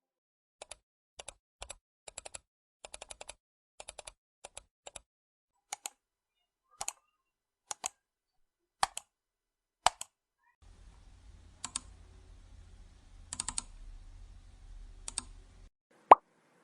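Cute editing sound effect of short sharp clicks, first in quick clusters like typing on a keyboard, then slower single clicks. A low steady hum comes in for the last few seconds under a few more clicks, and one loud pop sounds near the end.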